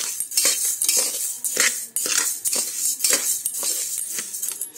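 Metal spatula scraping and stirring dry raw rice and yellow moong dal in a pressure cooker, the grains hissing and rattling against the pot with each stroke, about two or three strokes a second. The grains are being dry-roasted without oil.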